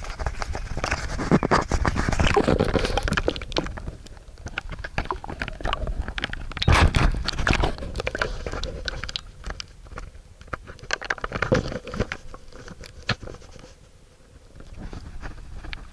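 Handling noise on an action camera's waterproof housing: irregular clicks, knocks and scrapes as the camera is moved into the water and held there. It is busiest and loudest in the first half and thins out near the end.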